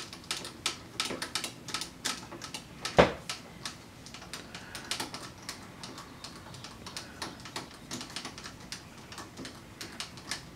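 Small metal parts and tools being handled on a metal lathe's slide: an irregular run of light metallic clicks and taps, with one sharper metal clack about three seconds in.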